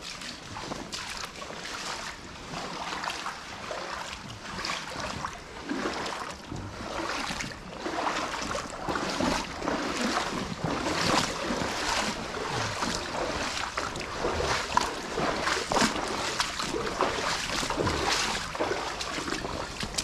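Footsteps in waders wading through shallow water and silt, a splash and slosh with each step at a steady walking pace, getting louder about eight seconds in.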